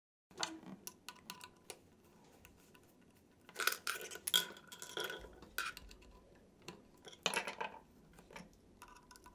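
Light metallic clicks and clinks as a presser foot is taken off and a gathering foot is fitted onto an industrial sewing machine's presser bar. The clinks come irregularly, with busier spells about halfway and again later.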